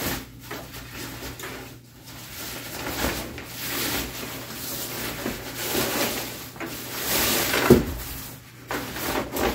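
Nylon stuff sack rustling and swishing as a rolled self-inflating sleeping pad is worked and slid out of it, with one sharp thump near the end as the pad comes free onto the table.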